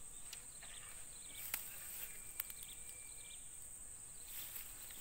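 Steady high-pitched insect chorus, with a few faint short chirps and two sharp clicks, about a second and a half and two and a half seconds in.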